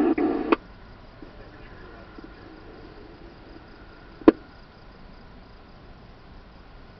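A scanner radio transmission cuts off with a click half a second in. After it come a faint steady hiss and faint insect chirring, and one sharp click about four seconds in.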